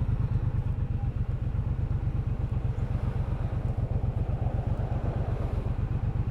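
Triumph Bobber's 1200 cc parallel-twin engine idling steadily, with an even low beat and no revving, while held up in traffic.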